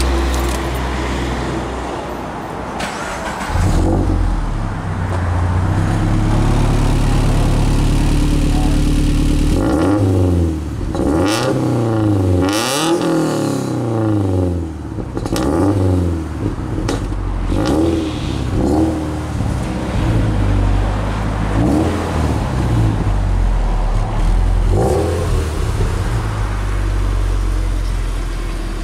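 2013 Scion FR-S's 2.0-litre flat-four engine breathing through an aftermarket header, test pipe and GReddy SP dual-exit catback exhaust, free-revving. It idles, steps up to a held higher speed about four seconds in, then gives several sharp revs that rise and fall, followed by a string of short throttle blips. It settles back to a steady idle near the end.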